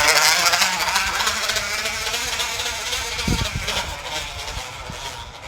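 Crushed, folded plastic bottle on a bicycle flapping against the turning spokes: a rapid plastic clatter that sounds like a small motor. It is loudest at the start and fades away over the next few seconds.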